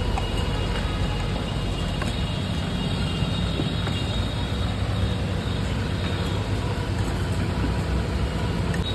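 Steady low rumble of engines and street traffic, with a few faint clinks of a steel spoon stirring raw marinated mutton in a steel bowl.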